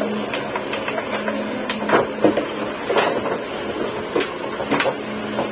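Scattered light knocks and clicks, about half a dozen spread irregularly, over a faint steady hum.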